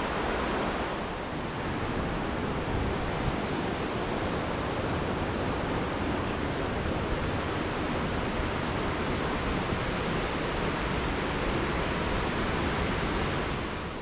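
Steady rushing of whitewater in a mountain creek, a constant hiss that drops off and grows fainter near the end.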